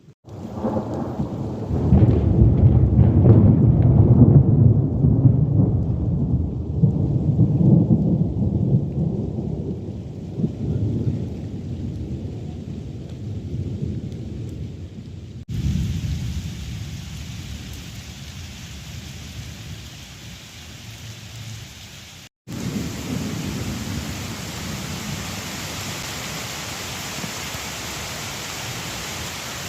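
Thunder: a loud, long rolling rumble that begins just after the start and dies away over about fifteen seconds. Then, after two abrupt cuts, steady rain hiss with further low rumbles of thunder.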